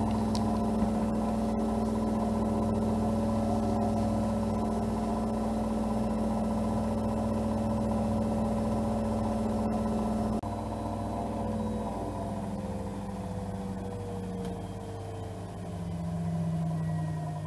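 Regal 8121 washing machine's drum spinning at high speed on its brushless DC motor, a steady hum with a held whine. About ten seconds in the steady pitch breaks and the tones slide slowly downward as the drum slows.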